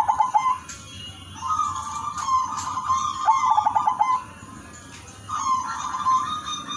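Zebra dove (perkutut) singing its cooing song. Repeated phrases, each a held note followed by a quick run of short falling notes, with pauses of about a second between phrases.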